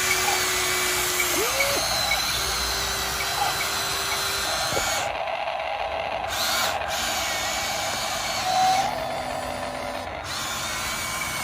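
Small electric motors and hydraulic pump of a radio-controlled excavator whining as it works, the whine rising in pitch about a second and a half in.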